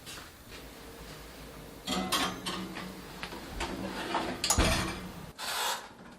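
Kitchen cooking sounds: a utensil rubbing and scraping against cookware, louder from about two seconds in, with a sharp knock midway.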